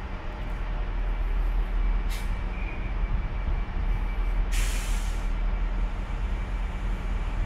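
Class 387 Electrostar electric train standing at the platform with a steady low hum. A short hiss of air comes about two seconds in, and a longer, louder hiss of air about four and a half seconds in, as from its air brakes.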